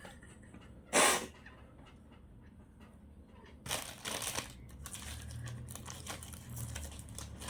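A person sneezing once, loudly and sharply, about a second in, with the nose tickled by a blade of grass to set the sneeze off. Softer rustling and breathy noises follow from the middle onward.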